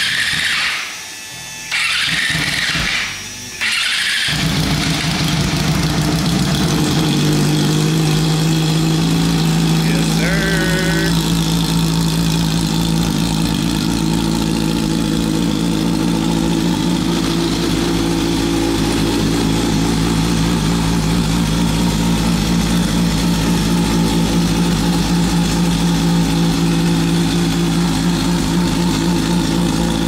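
A dirt micro sprint car's 600cc four-cylinder motorcycle engine with a four-into-one exhaust, running in three short loud bursts over the first few seconds. It then settles into a steady, even run.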